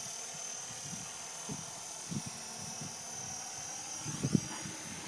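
Small electric KDS 450 SV radio-controlled helicopter flying at a distance: a faint, steady high whine from its motor and rotors. A couple of soft low knocks about four seconds in.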